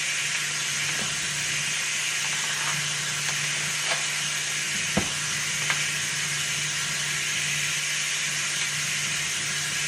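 Brussels sprouts sautéing in a pan, a steady sizzle over a low hum, with a few light clicks, the sharpest about five seconds in.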